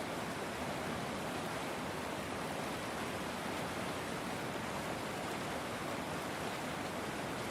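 Steady rushing of a flowing river, an even, unbroken wash of water noise.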